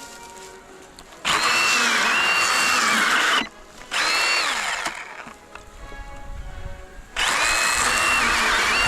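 Milwaukee M18 FUEL cordless mini chainsaw running in three bursts: about two seconds, then one second, then again from about seven seconds in. Its high motor whine dips in pitch and recovers during each burst.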